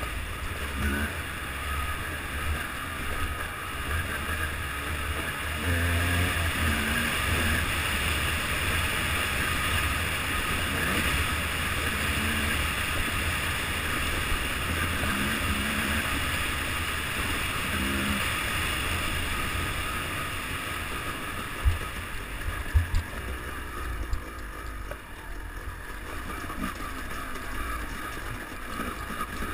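Yamaha 250 WRZ enduro motorcycle engine running under way on a trail, its pitch rising and falling as the throttle is worked. A few sharp knocks stand out about two-thirds of the way through.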